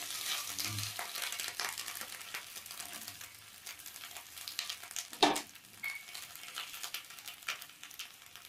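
Banana-leaf parcels of mackerel crackling and sizzling in a hot kadhai cooked without oil, with leaf crinkling as the parcels are turned over by hand. There is one sharp knock about five seconds in.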